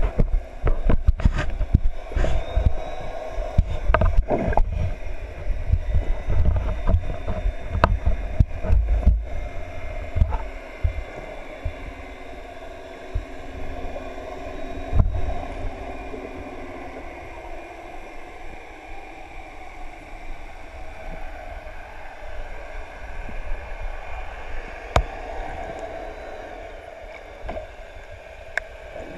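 Muffled underwater sound picked up by a GoPro Hero 3 inside its waterproof housing: a low rumble of moving water with many clicks and knocks over the first ten seconds, then a steadier hum with faint held tones.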